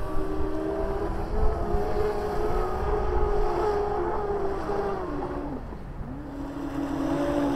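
Twin brushless electric motors of a 2.35 m RC speedboat whining at speed. The pitch holds, falls away about five seconds in as the throttle comes off, then climbs again near the end.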